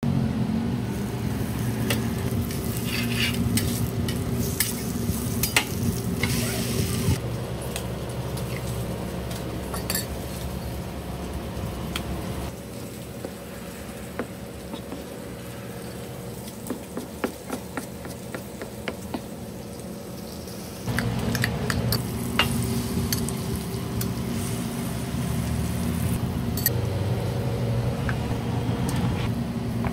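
Bacon strips sizzling on a hot flat-top griddle over a steady hum. Then, more quietly, a knife chopping tomatoes on a plastic cutting board in a series of sharp clicks. Near the end, a plastic bag of sliced bread rustles, with the louder hum back.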